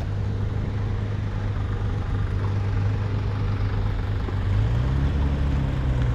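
A car engine running with a steady low hum. About four and a half seconds in, its note rises as the vehicle speeds up.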